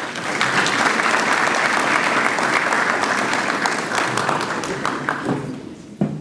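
Audience clapping, starting all at once and dying away after about five seconds, with a couple of knocks near the end.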